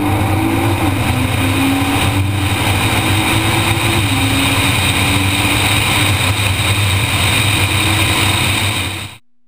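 A car engine accelerating hard in a drag run: its pitch climbs through the gears and drops at upshifts about a second in and about four seconds in. The sound cuts off suddenly near the end.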